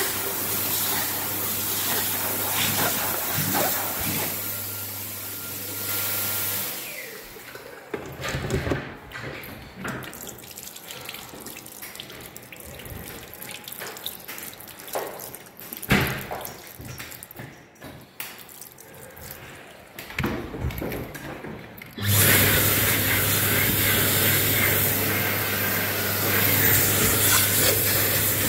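A Dyson hand dryer blowing with a low hum, which shuts off about six and a half seconds in. Hands are then washed under a running tap, with splashing. About 22 seconds in, a second Dyson hand dryer starts suddenly, loud, with a high thin whine above the rush of air.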